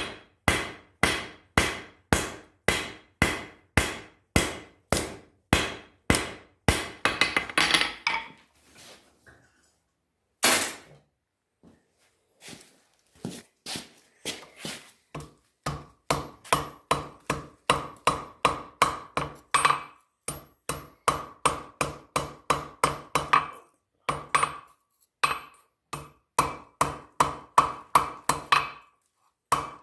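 Blacksmith's hammer striking steel on an anvil in a steady rhythm of about two blows a second, then a quick flurry of lighter taps and a pause of a few seconds broken by a single blow. The hammering resumes faster, each blow ringing, with two short breaks.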